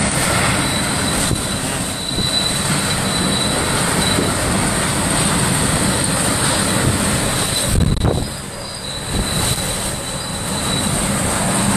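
Hurricane Michael's eyewall winds blowing at hurricane force, a dense, steady rushing roar that eases briefly about eight seconds in.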